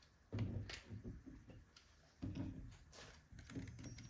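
Faint handling sounds: a few light knocks and clicks, in two short clusters about half a second and two seconds in.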